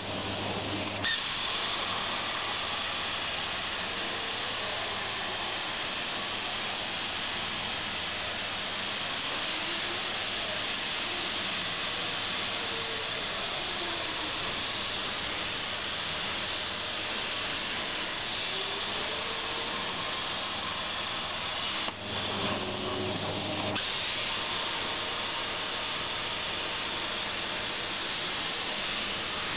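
CNC plasma cutter's arc hissing steadily as the torch cuts sheet steel. The hiss breaks off briefly just after the start and again about 22 seconds in, when the arc is off between cuts and a low hum is left. A faint whine rises and falls underneath as the torch travels.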